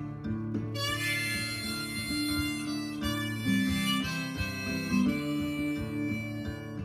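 Harmonica playing an instrumental break over a strummed acoustic guitar; the harmonica comes in about a second in, on top of the guitar's steady chords.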